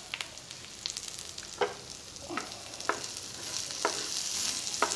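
Curry leaves, garlic, green chillies and cumin sizzling in hot sesame oil in a clay kadai, with a spoon stirring and striking the pot about once a second. The sizzle grows louder toward the end.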